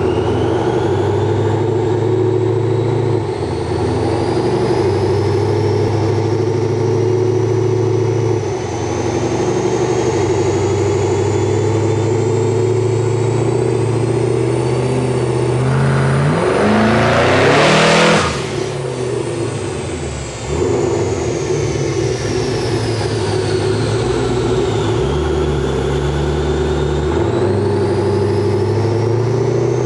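Twin-turbo 6-litre V8 of a Holden VE Commodore Berlina, fitted with twin Garrett GT2876R turbochargers, running on a chassis dyno. A high whine climbs slowly in pitch over the first half. About two-thirds of the way through it revs up sharply and gets louder, drops off suddenly, then settles back to steady running.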